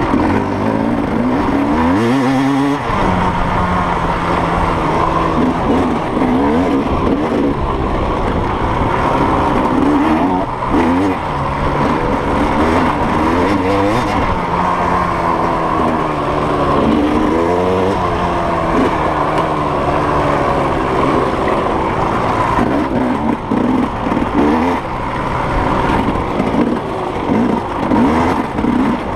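Off-road racing engine at full effort, revving hard. Its pitch climbs steeply, drops, and climbs again over and over with throttle and gear changes.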